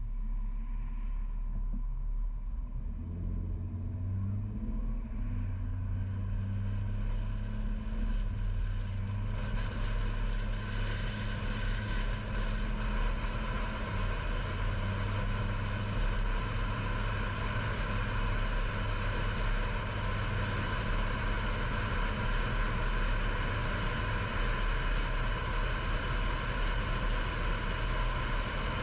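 Car driving, picked up by a dash camera inside it: a steady low engine hum comes in a few seconds in over a deep rumble, and road and tyre noise grows louder from about ten seconds in and then holds.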